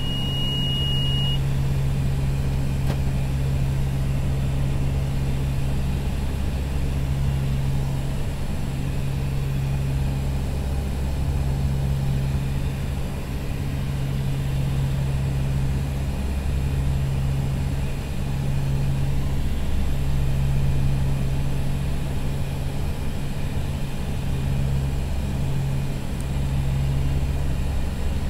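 Convair 580's two Allison turboprop engines and propellers droning steadily at approach power on final, heard inside the cockpit, with a low hum that slowly swells and fades. A brief high steady tone sounds right at the start.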